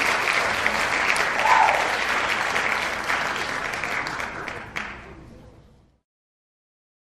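Audience applauding, a dense crowd of clapping hands that fades out over the last couple of seconds and stops about six seconds in.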